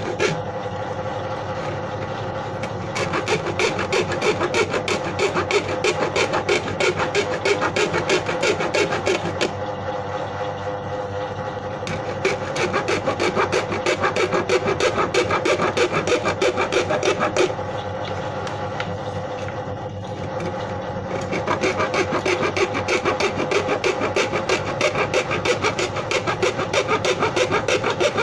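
Rapid back-and-forth rasping strokes of a hand tool working the plastic of a used paint bucket, stopping twice for a few seconds, over a steady hum.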